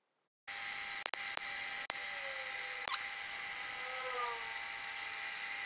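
A 1939 Mauser milling machine's small end mill cutting surplus white metal off a bronze bearing cap, heard sped up: a steady high whine and hiss. It starts about half a second in and briefly drops out a few times in the first two seconds.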